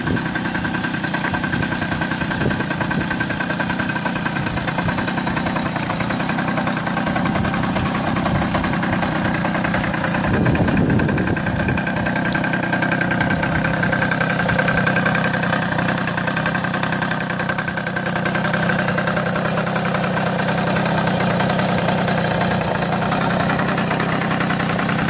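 Balkan MK50-3 moped's 50cc two-stroke single-cylinder engine idling steadily, with revs rising briefly about ten seconds in.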